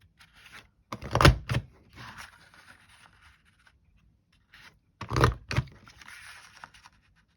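Paper border punch pressed down through paper twice, about four seconds apart, each time with a crunching clack, followed by the paper scraping and rustling as it is slid along to line up the next punch.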